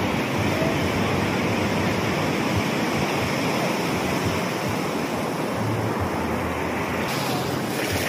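Ocean surf: waves breaking and foamy water washing up the sand, a steady rushing wash.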